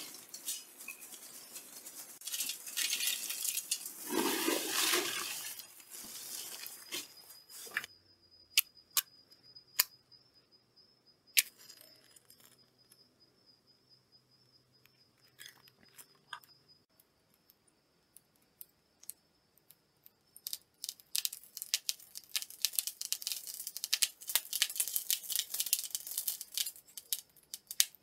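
Crumpled paper rustling as it is stuffed into a metal charcoal chimney starter, then a match struck. Near the end, dense rapid crackling as the paper and charcoal in the chimney catch fire.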